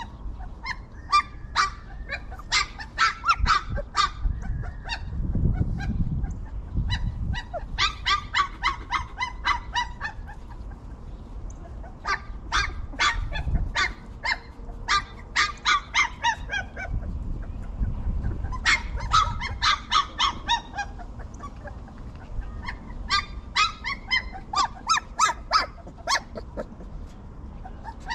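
Short animal or bird calls repeated in quick runs of several a second, coming in clusters, with a low rumble swelling twice underneath.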